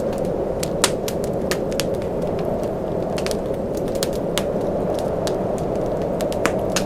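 Wood fire crackling with irregular sharp pops, a loud one just under a second in, over a steady low roar of blizzard wind.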